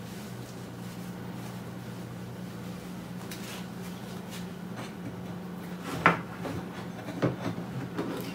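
Several knocks and bumps on a wooden desk as hands handle things on it, the loudest about six seconds in and a quick cluster of smaller ones after, over a steady low hum.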